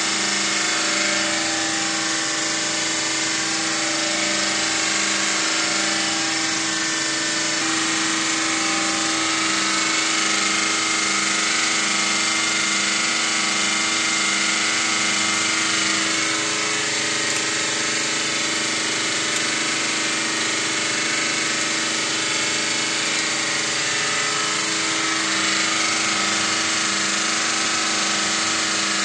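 Hydraulic pump of a concrete compression-testing press running steadily, a constant mechanical hum with a regular throb, as it loads a concrete test cube to failure.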